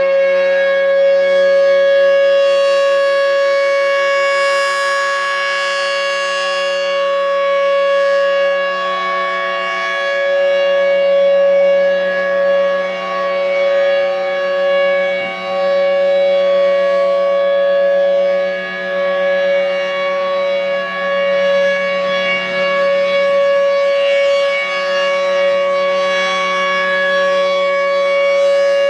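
Federal Signal Thunderbolt 1003 outdoor warning siren sounding the steady alert signal at full pitch, loud, with a low hum underneath. Its volume swells and dips slightly as the rotating head sweeps around.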